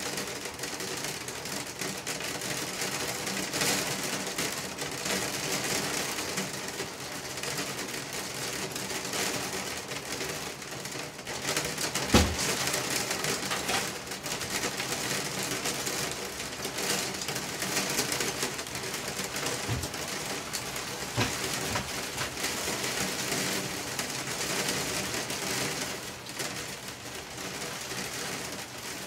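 Bathwater sloshing as a bather shifts position in a clawfoot tub, with a single knock against the tub about halfway through, over a steady hiss.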